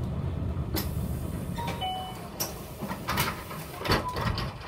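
City bus slowing to a halt at a stop: the engine rumble fades about halfway through, with a brief squeal and then several sharp air hisses and clunks of the brakes and doors.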